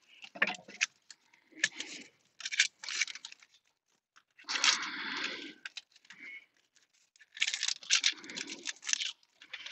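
A knife cutting through an onion onto a wooden cutting board with a few short knocks, then the onion's dry papery skin being peeled off by hand in several short bursts.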